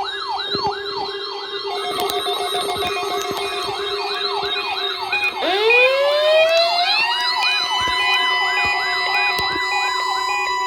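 Several sirens sounding at once. One repeats a quick falling whoop, about three a second, over a steady low tone, with short beeps repeating. About halfway through, another siren winds up from low to a steady high pitch and becomes the loudest.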